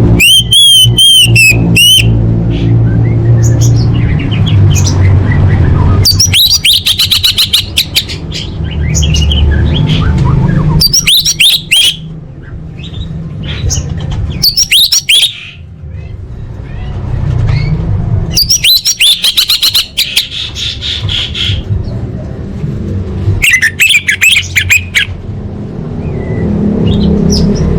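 Orange-headed thrush singing in about six short bursts of fast whistles, chirps and trills, each a second or two long with pauses between, over a steady low rumble.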